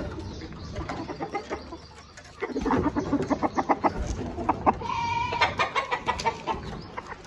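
Chickens clucking in quick short notes, with one longer drawn-out call about five seconds in.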